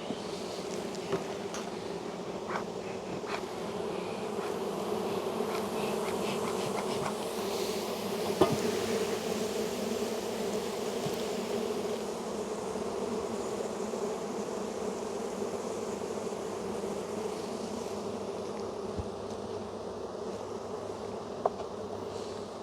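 Dense, steady buzzing of a large mass of honey bees from an opened, crowded hive during inspection, with a few light knocks, the loudest about eight seconds in.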